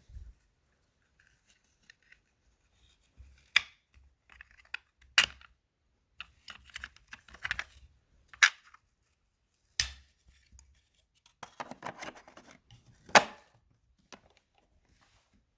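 Sharp clicks and knocks, about seven of them with the loudest near the end, and rustling between them, from the parts of a Riccar upright vacuum being handled while its motor is off.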